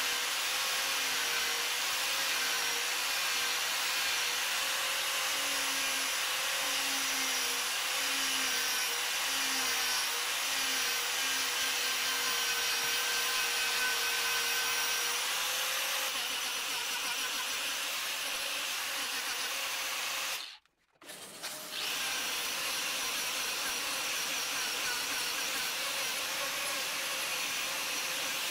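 Handheld Arbortech power carver running steadily, its small cutting wheel grinding into the wood to hollow out a bowl. The sound cuts out briefly about two-thirds through, then carries on the same.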